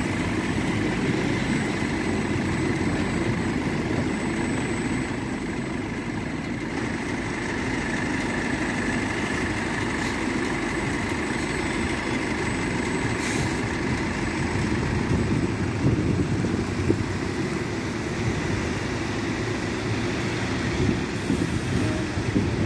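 A New Routemaster hybrid double-decker bus running at a stop and then pulling away: a steady low engine rumble with a faint, steady high whine over it.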